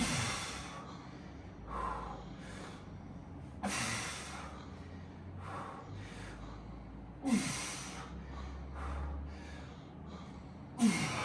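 A man's hard breathing as he strains through heavy lifting reps: four sharp, forceful exhalations with a short falling grunt, about three and a half seconds apart, with quieter inhalations between. He is struggling, with a weight he calls definitely too heavy.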